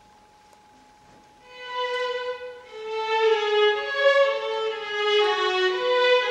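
A single instrument plays a slow solo melody of held notes, one at a time, starting about a second and a half in after near silence.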